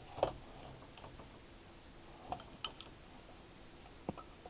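A few faint, sharp clicks and taps of equipment being handled, spaced a second or two apart.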